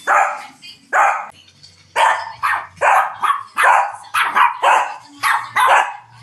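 Shih Tzu barking repeatedly: about a dozen short, sharp barks, spaced about a second apart at first and coming faster, roughly two a second, after about two seconds.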